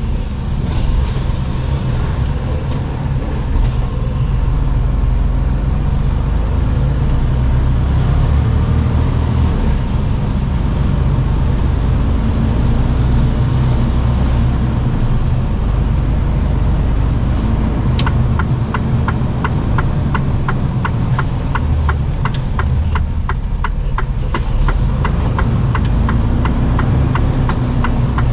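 Mercedes-Benz Actros truck's diesel engine and road noise inside the cab while driving, a steady low rumble. About two-thirds of the way through, a sharp click and then regular ticking, about two to three a second: the turn-signal indicator.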